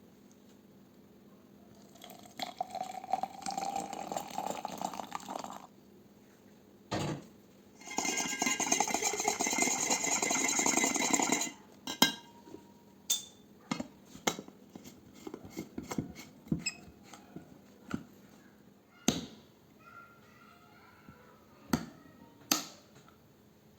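Kitchen tap running into a sink in two spells of a few seconds each, then a string of short clinks and knocks of dishes and utensils being handled and set down.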